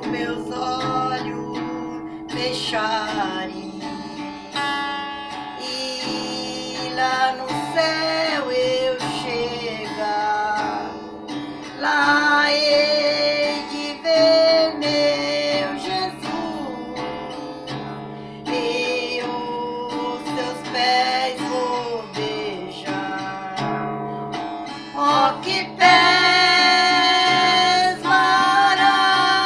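Female voices singing to a strummed acoustic guitar, with the guitar sounding all wrong.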